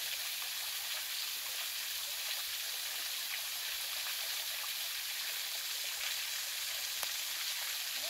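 Small waterfall whose thin streams fall off a rock ledge and splash into a shallow rock pool, giving a steady, even hiss.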